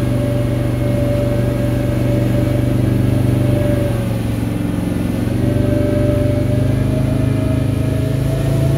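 Motorboat engine running steadily under power through rapids; its pitch dips slightly about halfway through, then climbs a little near the end.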